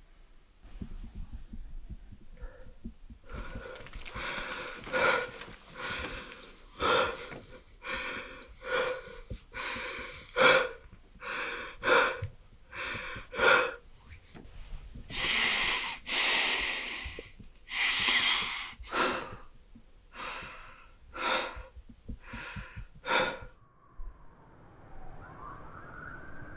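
A man breathing hard in ragged gasps, about one breath a second, with two longer harsh exhales in the middle. The breathing stops suddenly near the end.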